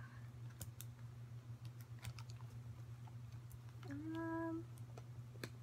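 Small scattered clicks and taps of cardboard blind boxes being worked open by hand, flaps and tabs pried and peeled carefully, over a low steady hum.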